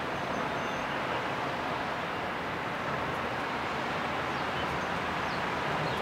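Steady dockside din of a ro-ro ferry unloading: lorries driving off the stern ramp onto the quay, with a few faint bird chirps near the end.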